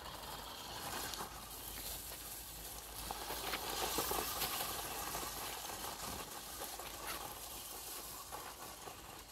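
Small electric RC truck running up a dirt trail strewn with dry leaves: a steady hissing rustle of motor and tyres with small crackles, swelling in the middle.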